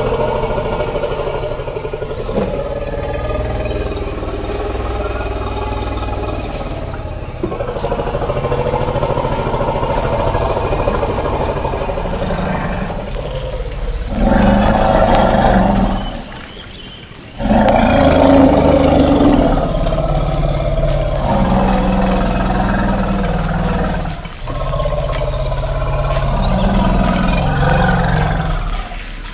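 Elephants calling: long, low rumbling calls at first, then louder roar-like calls in the second half, with a short break a little past halfway.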